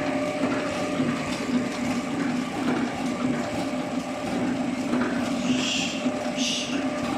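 Horizontal flowpack packaging machine running with a steady hum, with two short hisses near the end.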